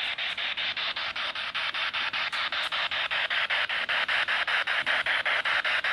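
Spirit box radio sweeping through stations: a steady hiss of static broken into short pulses about six times a second.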